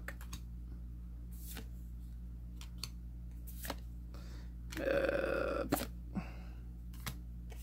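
Soft clicks and flicks of trading cards being handled and swapped in the hands, a handful of short ticks over a steady low hum. About five seconds in, a short vocal sound from the person handling them.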